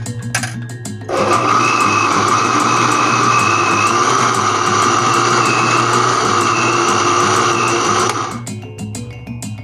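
Electric blender running for about seven seconds, switched on about a second in and off near the end, grinding an ingredient very fine, with a steady whine from the motor. Background music with a beat underneath.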